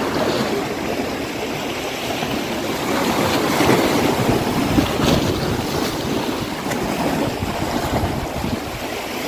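Sea waves washing and splashing against a rock breakwater, swelling a few seconds in, with wind buffeting the microphone.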